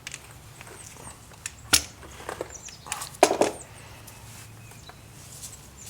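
Hand grease gun being worked on the chassis grease fittings: scattered metallic clicks and knocks, with two sharper ones about a second and a half apart.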